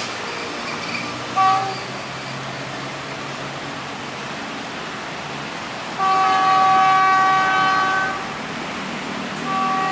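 Train horn sounding a chord: a short toot, then a long blast of about two seconds, then another short toot near the end, over the steady rumble of a train running on the tracks.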